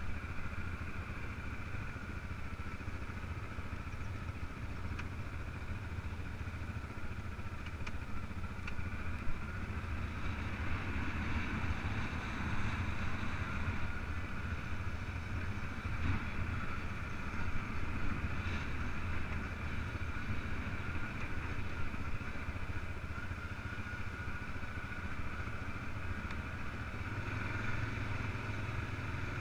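ATV engine running steadily at low speed as the quad drives over a bumpy grass track, with a few short knocks from the machine along the way.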